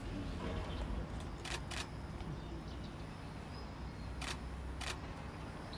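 Single-lens reflex camera shutter clicking four times in two quick pairs, about a second and a half in and again a little over four seconds in, over a low steady rumble.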